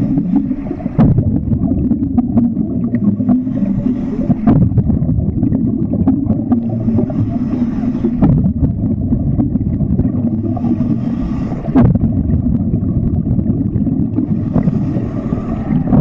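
Muffled underwater noise picked up by a camera held beneath the surface of a swimming pool: a steady low rumble, with a hissing swish every few seconds and a few sharp knocks.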